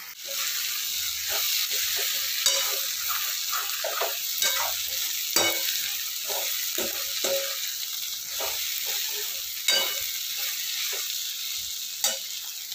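Sliced okra and onions sizzling as they fry in a metal kadhai, with a spatula stirring and scraping against the pan in irregular strokes, a few of them louder knocks.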